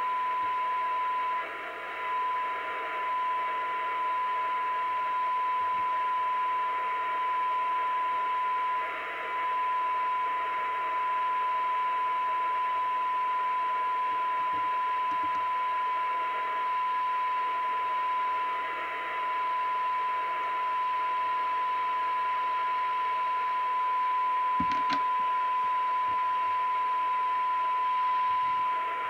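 Audioline PT340 CB radio's loudspeaker giving a steady test tone from a signal generator over receiver hiss, the weak, backed-off test signal used while its receive coils are aligned for sensitivity. A brief knock near the end.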